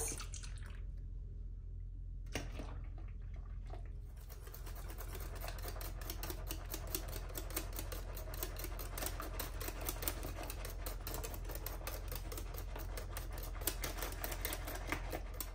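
Stainless wire whisk beating thin crêpe batter in a glass bowl, its wires clicking rapidly against the glass. It is quieter for the first few seconds, then settles into a fast, even clicking from about four seconds in.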